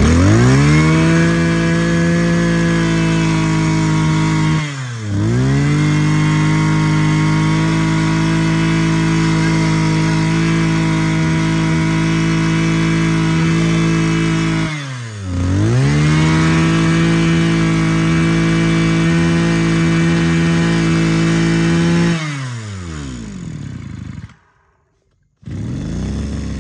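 Mitsubishi TU26 26 cc two-stroke brush cutter engine running at high speed. Twice its pitch dips briefly and climbs straight back. Near the end it winds down and cuts off.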